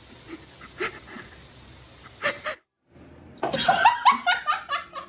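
A person laughing hard in quick repeated bursts, starting just past halfway after a brief silent cut. Before it there is a steady hiss with a few short, faint sounds.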